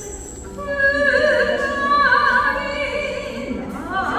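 A high voice singing long held notes with a wide vibrato, in a classical, operatic style. The singing swells in about half a second in.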